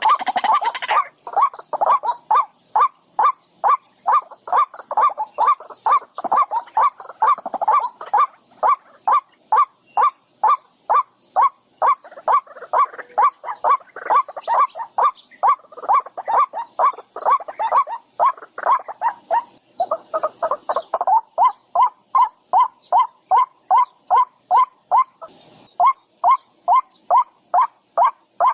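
A bird calling over and over, short loud notes at about two a second.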